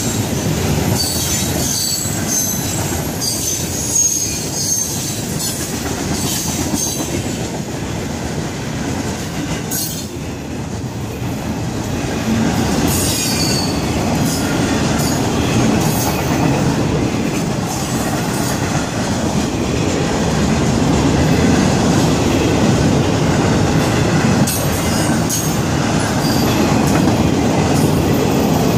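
Freight train cars rolling past on the Florida East Coast Railway main line, a steady rumble of steel wheels on rail. High-pitched wheel squeals come and go over the first several seconds and again about thirteen seconds in, with a few sharp clicks from the wheels.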